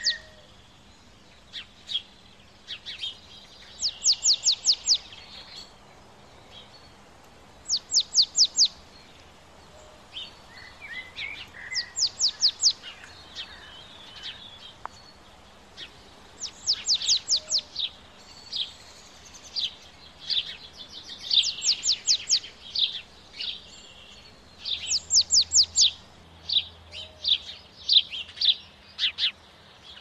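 Small songbirds calling: one repeats a quick run of four to six sharp, high notes every few seconds, with scattered shorter chirps and twitters between.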